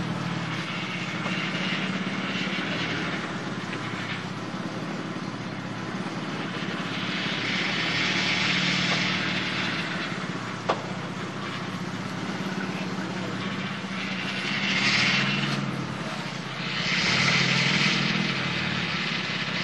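Lifted Toyota off-roader's engine running steadily at a standstill, with a hiss that swells and fades several times and a single sharp click partway through.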